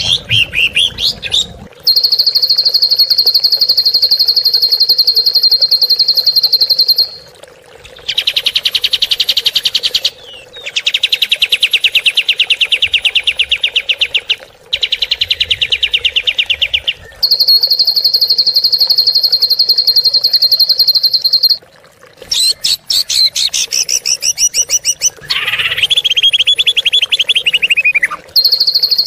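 Recorded songbird giving harsh, rapid-fire 'tembakan' song of the kind used as masteran to tutor cage songbirds: long, very fast trills of evenly repeated high notes, each lasting several seconds with brief breaks and shifting in pitch from one trill to the next, and a run of quicker, more varied notes about three quarters of the way through.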